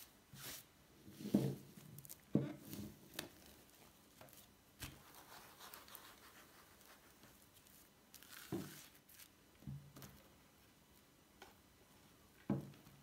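Plastic cling film crinkling and rustling as hands smooth it flat over a wooden table, with a few soft knocks on the tabletop.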